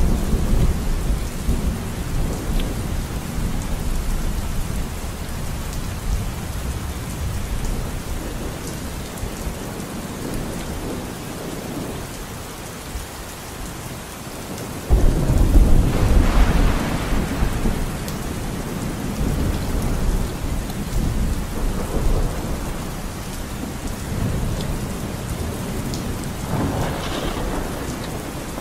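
Steady rain, with a rumble of thunder that starts suddenly about halfway through, loud and deep, and dies away over several seconds.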